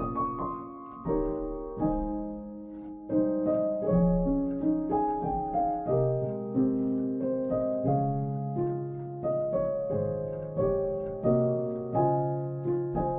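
Background piano music: a slow, gentle melody of struck notes, each fading away before the next.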